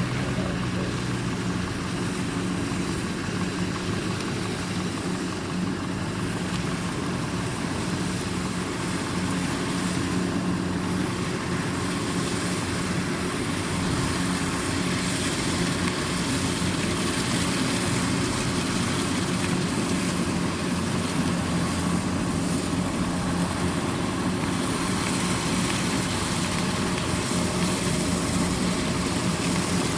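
Kubota DC-93 combine harvester running steadily under load while cutting lodged rice. Its diesel engine and threshing drum make a constant hum, with the pitch holding steady throughout.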